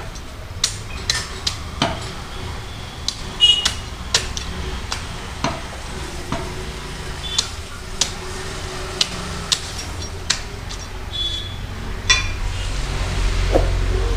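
A heavy meat cleaver chopping a skinned mutton head on a wooden log chopping block: irregular hard chops and knocks about once a second, the loudest about three and a half seconds in. A low rumble swells near the end.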